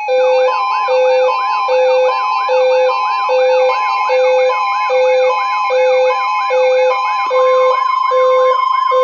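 Loud electronic emergency alert tone made of several layered signals: a low beep repeating a little faster than once a second, rapid rising-and-falling siren whoops, and steady higher tones. About seven seconds in, one of the higher tones stops pulsing and holds steady.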